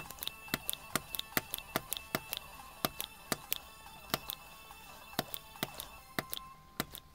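Small hand tools clicking and tapping against a circuit board while it is being desoldered: irregular sharp ticks about three a second, over a faint steady high tone that fades out near the end.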